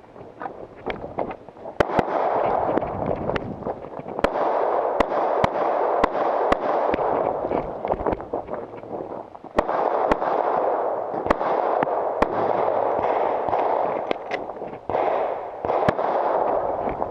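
Pistol shots fired in quick strings, with a pause of about two seconds partway through, over a steady rushing noise.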